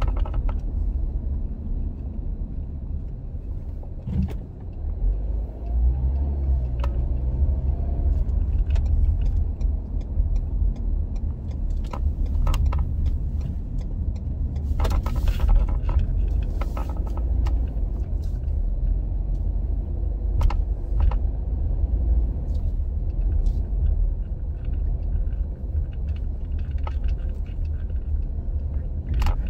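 Road noise inside a moving car at low speed: a steady low rumble of engine and tyres, with scattered small clicks and rattles, and a brief hissing stretch about halfway through.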